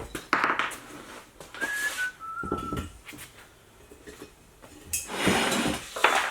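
Three short whistled notes, each lower than the last, about two seconds in. Around them, metal tools and engine parts clank and rattle as they are handled, loudest just before the end.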